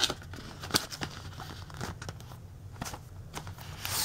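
Plastic Blu-ray case and cardboard slipcover being handled: scattered clicks and scraping rustles, with a louder scrape near the end.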